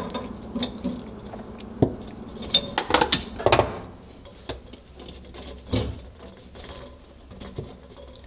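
Small metal clicks and clinks of a wrench working the nut of a braided stainless supply line on a chrome compression shutoff valve, snugging it up. They come in a quick cluster about three seconds in, then a few scattered ones, quieter after that.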